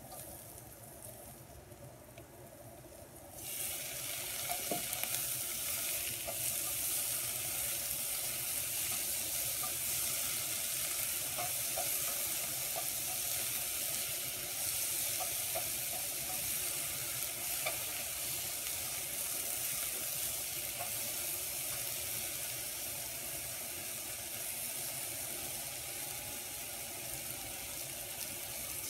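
Baby golden chanterelle mushrooms hitting hot oil in a wok: a loud sizzle breaks out about three and a half seconds in and keeps up steadily while a spatula stirs them, with light scrapes and taps of the spatula on the pan.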